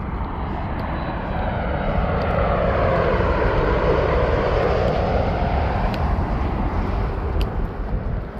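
Airplane engines passing low overhead, swelling to loudest about four seconds in and then fading.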